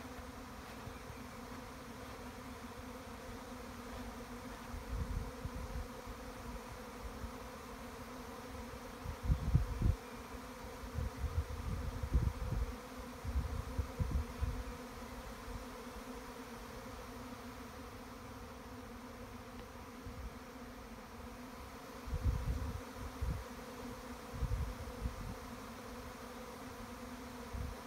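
Honeybee swarm buzzing around the bait hive it is moving into: a steady hum of many bees on one low pitch with its overtones. Low rumbling bursts come and go over it, loudest about a third of the way in and again about three-quarters of the way through.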